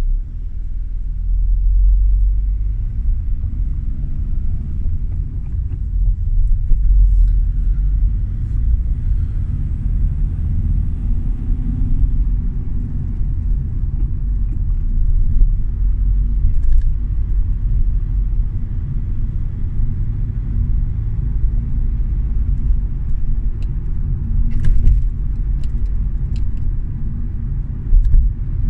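Steady low road and engine rumble inside a car's cabin as it cruises along at a constant speed, with a few faint ticks.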